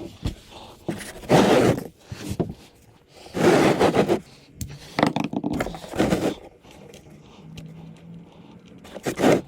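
Several short scraping, rubbing strokes: the grimy area around a motorcycle's oil drain plug being wiped clean before the plug comes out.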